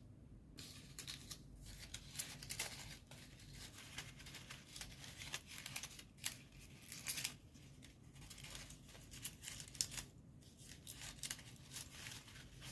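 Folded origami paper units rustling and crinkling as they are slid and inserted into one another, in short, irregular rustles.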